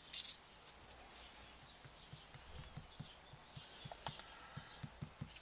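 Faint handling sounds: a series of small, soft taps and one sharper click about four seconds in, as a disc with a hole is slid down over the fuse into the projectile tube.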